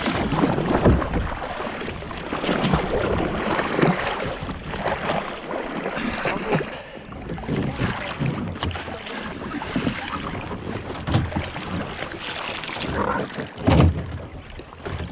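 Water splashing and sloshing around a red sea kayak as a swimmer drains it by lifting the bow and climbs back into the cockpit, with wind buffeting the microphone. There is a louder knock near the end.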